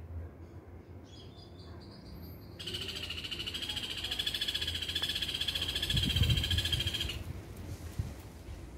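An animal's rapid, high-pitched trill, getting louder, starts about two and a half seconds in and stops abruptly about a second and a half before the end; a fainter, higher pulsing call comes before it. Low rumbling thumps sound under the trill near the middle.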